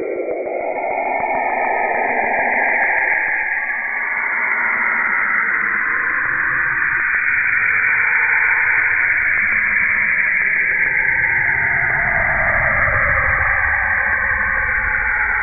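Space probe radio and plasma-wave data played back as sound: a loud, dense hiss with broad bands of pitch that slowly sweep up and down, and a low rumble building in the second half.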